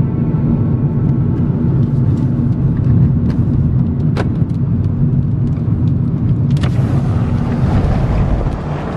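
Thunderstorm gust-front wind buffeting a car, heard from inside the cabin as a heavy low rumble over a steady engine hum, with scattered sharp ticks. A louder hiss comes in about six and a half seconds in.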